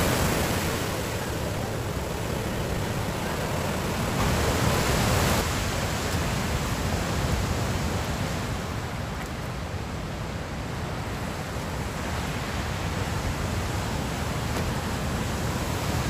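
Sea waves breaking and washing up a sandy beach in a steady rush, mixed with wind, swelling briefly about four seconds in.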